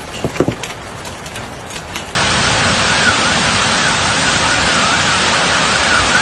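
Heavy rain pouring down with scattered ticks of impacts. About two seconds in it changes abruptly to a louder, denser downpour, with a warbling alarm tone rising and falling about twice a second.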